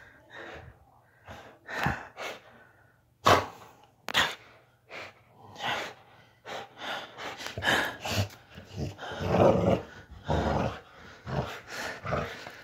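A large bully-breed dog growling and breathing hard in irregular bursts while it grips and tugs on a rope, loudest about two-thirds of the way through. Two sharp knocks sound a few seconds in.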